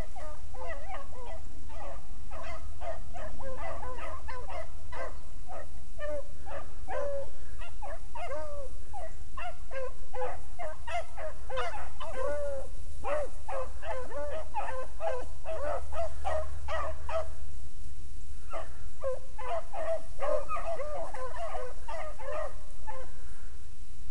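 A pack of beagles baying as they run a rabbit, many overlapping yelping and bawling calls in quick succession, with a couple of brief lulls.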